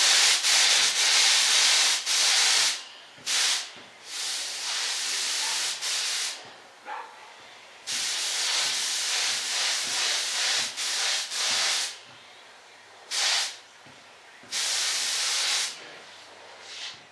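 Paint spray gun hissing in about six bursts, some lasting a few seconds and some under a second, with short pauses between.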